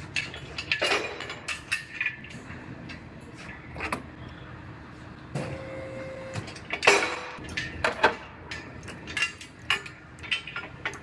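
Metal clanks, knocks and chain rattles from a frame machine's pulling tower and chain being set up for a pull on a damaged trunk floor, with the sharpest knock about seven seconds in. A brief steady tone sounds for about a second just before it.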